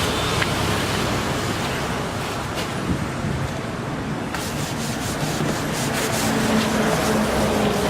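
Steady rubbing and scrubbing, a cloth or sponge wiping down refrigerator surfaces, with a few faint clicks.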